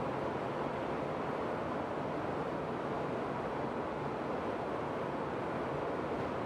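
Rows of water nozzles spraying down a pickup truck in a factory water-leak test booth: a steady, even hiss of spray.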